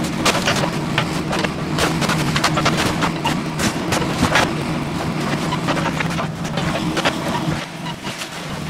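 Mini excavator's diesel engine running steadily as the machine tracks across the yard, with a rapid scatter of sharp clanks and cracks from the tracks and undercarriage. The engine note drops off near the end as the machine settles in front of the house.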